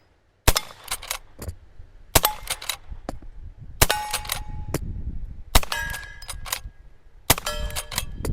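Uberti Model 1873 lever-action rifle in .44-40 firing five shots in steady succession, about a second and a half to two seconds apart. Several shots are followed by the brief metallic ring of struck steel targets.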